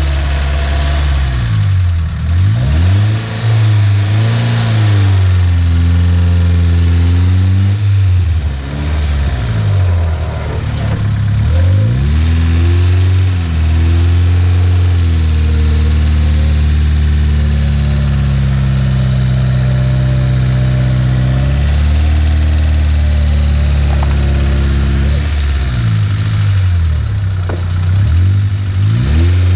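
Off-road vehicle's engine running hard, its revs rising and falling repeatedly, with several sharp drops and surges and a longer steady stretch in the middle.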